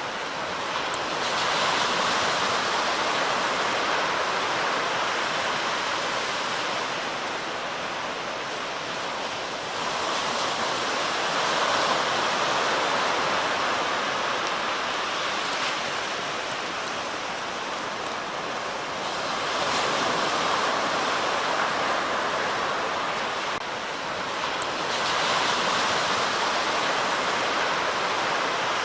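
Surf breaking on a beach: a steady wash of noise that swells and eases four times, every six to nine seconds, as waves come in.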